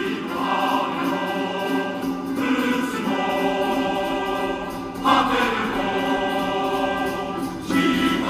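Music playing through a car stereo's speakers: sustained choir-like chords that change about every two and a half seconds.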